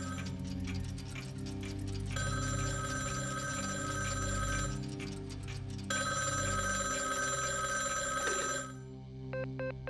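A desk telephone's bell ringing in long rattling rings of about two and a half seconds, a second or so apart, over low sustained music. Near the end the ringing stops and short repeated tones take over.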